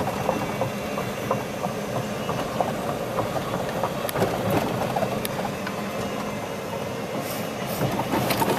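Golf cart driving along a paved cart path: a steady motor hum with scattered clicks and knocks from the moving cart.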